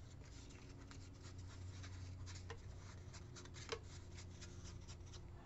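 Faint, repeated short scratchy strokes of a round ink blending tool rubbing along the edge of a paper strip, smudging ink onto the edges.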